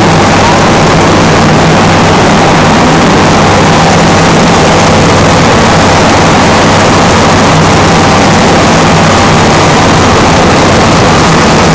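A large engine running steadily with a loud, unchanging low drone and hum.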